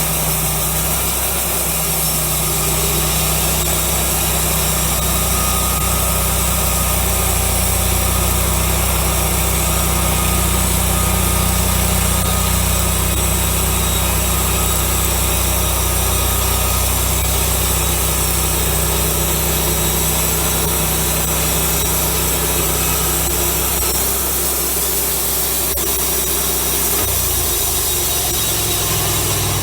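Wood-Mizer LX150 bandsaw mill running steadily, its engine driving the band blade through a pine cant, with a steady hiss over the engine note; the engine note shifts slightly near the end.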